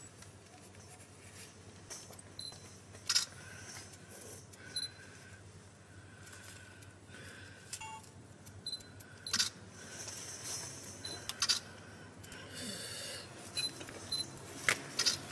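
Cardboard spatula scraping and spreading metal-repair putty over a pipe joint: scattered short scrapes and sharp clicks at irregular intervals.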